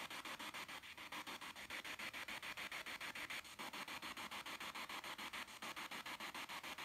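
Spirit box sweeping through radio stations: hissing static chopped about ten times a second, with no voices coming through.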